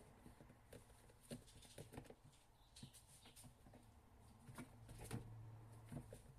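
Faint, scattered small clicks and scuffles from young kittens moving about, over a low hum.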